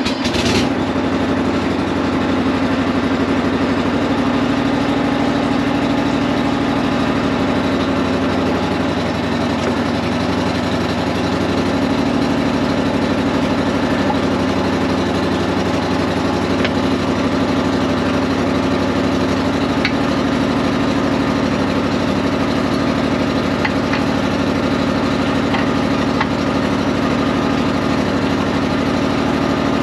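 Bobcat skid steer engine running steadily, just after coming up to speed, with a single knock right at the start.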